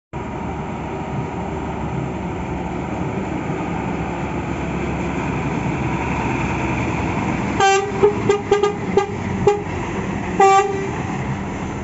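Mira intercity bus's diesel engine running as it drives slowly past. About two-thirds of the way through, its horn gives a quick string of short toots, then one longer toot.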